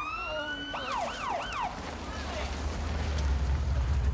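Police car siren giving a short wail that rises and holds, then a few quick yelps, cutting off before two seconds in; a vehicle's low engine rumble then grows louder.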